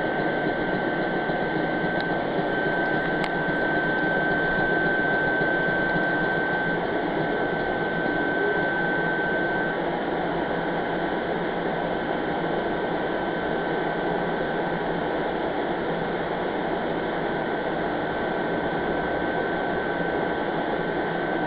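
Steady mechanical hum and whirr of a stopped electric train's equipment and air conditioning, with a thin high whine that is stronger in the first half.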